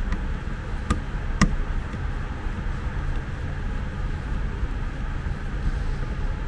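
Two sharp plastic clicks about a second in, as the parts of a small aspirator piston compressor are pressed together by hand, over a steady low background rumble.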